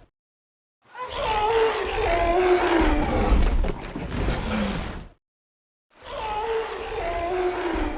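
Sound-designed Tyrannosaurus rex roar for a film, layered from a baby elephant recording and other elements. Two long roars with a wavering pitch that slides downward, the second starting about six seconds in after a short silence.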